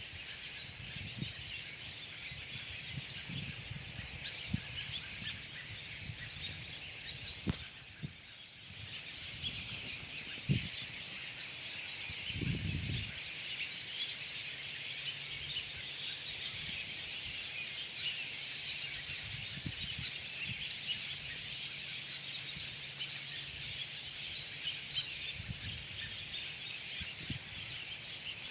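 A feeding flock of birds chirping and calling continuously, many short overlapping calls at once, as they eat berries. A sharp click about a quarter of the way in and a brief low rumble near the middle.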